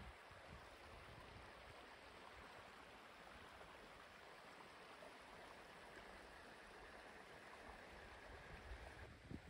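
Faint, steady rush of creek water trickling over rocks.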